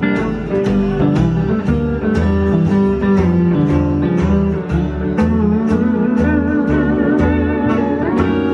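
Live country band: a Fender lap steel guitar plays a sliding lead line over a walking bass line and a steady, evenly spaced beat.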